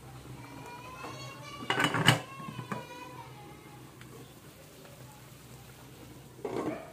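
Aluminium and glass cooking-pot lids being handled: a loud metal clatter about two seconds in, and a short scraping rattle near the end as a glass lid is lifted off a pan.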